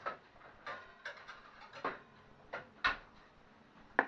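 Several short, light knocks and clacks of handling, ending with a metal baking tray set down on a woven placemat, which gives the sharpest knock.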